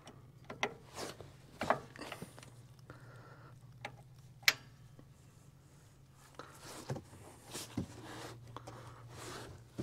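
Scattered clicks, clinks and knocks of a wrench working loose the side drain plug on an LS MT342 tractor's engine oil pan, with one sharp metallic click about four and a half seconds in and some rustling near the end.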